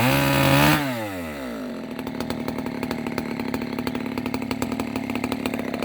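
Two-stroke chainsaw revved high for under a second, then its pitch drops away to a steady, evenly pulsing idle.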